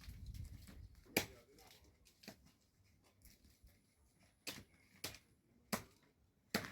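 About six sharp clicks and snaps at uneven intervals, with a brief low rumble at the very start.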